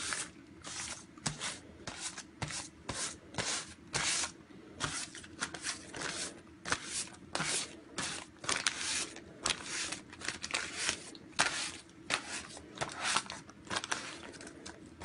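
Quick, irregular scratchy rubbing and scraping noises, one or two a second, from a gloved hand working over a spray-painted surface.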